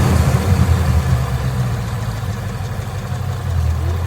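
2011 Mustang GT's 5.0 V8 running at idle, a little louder in the first second before settling to a steady note. The owner suspects a possible rod knock at 99k miles.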